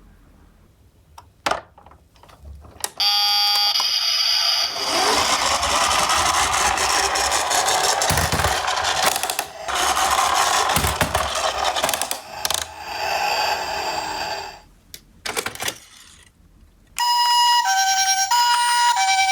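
A two-tone ambulance siren starts near the end, switching back and forth between a higher and a lower note. Before it comes a short ringing electronic tone about three seconds in, then a long stretch of loud rattling, rolling noise with a few thumps.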